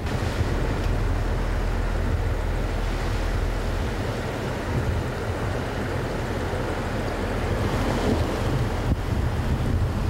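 Muddy floodwater of a river in spate rushing steadily, with typhoon wind buffeting the microphone as a low rumble.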